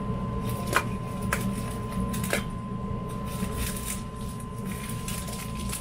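Small parts packet being opened and handled, crinkling and rustling, with a few sharp clicks. A steady low hum and a faint steady high tone run underneath.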